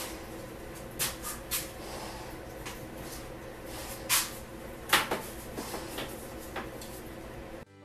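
A few short knocks and rustles as an idle, switched-off DeWalt random orbital sander and its cord are handled, over a steady low hum. The hum cuts off suddenly near the end.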